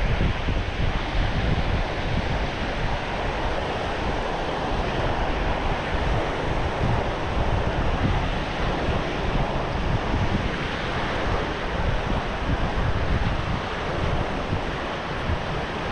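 Small waves breaking steadily on a sandy shore, with wind buffeting the microphone in a low, uneven rumble.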